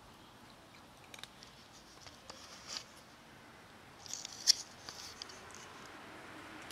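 A cat crunching dry kibble from a plastic tub: scattered crisp crunches and clicks, the loudest cluster about four and a half seconds in.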